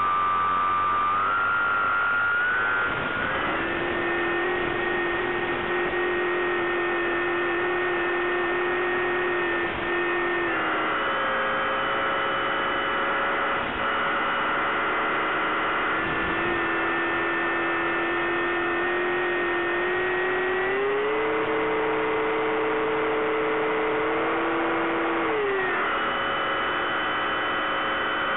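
Electric motor and propeller of a Bixler 3 foam RC plane humming in flight, heard over hiss through the onboard camera's audio. Its pitch steps up and down several times.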